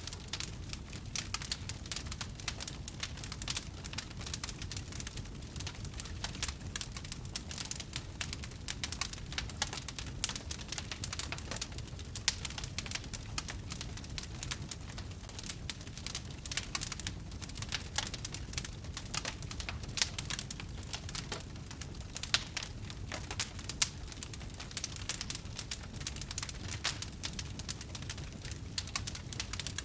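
Wood campfire crackling, with dense, irregular snaps and pops over a low steady rumble.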